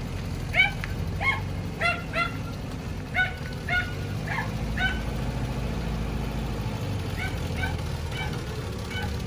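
Short, high-pitched animal calls, about fifteen of them, coming irregularly and thinning out after the first five seconds, over a steady low rumble.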